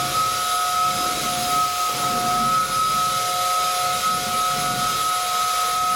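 MOOSOO K17-Pro cordless stick vacuum running steadily: a constant high motor whine over the hiss of rushing air.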